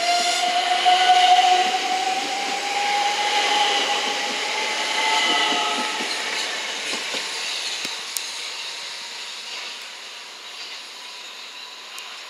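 Southern Class 377 Electrostar electric multiple unit running past with a whine that rises slowly in pitch as it gathers speed, over wheel and rail noise. Loudest as it passes, then fading steadily as it pulls away.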